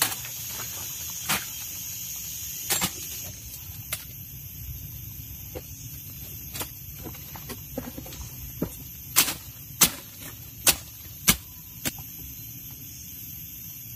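Undergrowth being cleared from a patch of ground: sharp, irregular cracks of vegetation being cut and broken, coming closer together between about nine and twelve seconds in.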